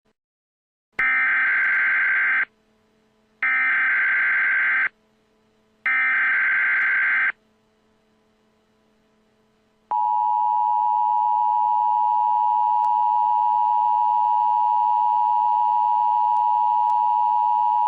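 Emergency Alert System tones. Three identical bursts of digital data-header noise, each about a second and a half long with a short gap between them, are followed about ten seconds in by the steady two-tone attention signal, held for about eight seconds.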